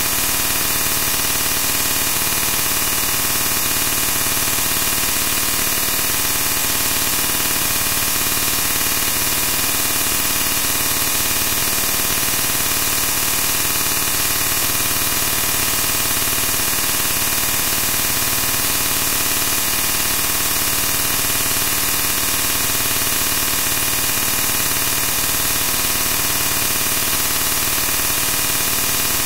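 Loud, steady static hiss with no breaks and no other events.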